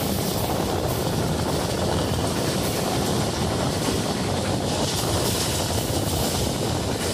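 Passenger train running along the line, heard from on board: a steady, unbroken rumble and rush of noise.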